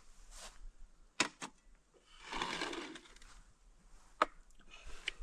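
A few sharp, separate clicks and taps, with a brief rustle about two seconds in.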